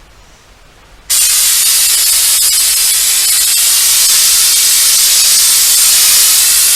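Aerosol can of Flex Seal liquid rubber spraying. A loud, steady hiss cuts in suddenly about a second in and holds.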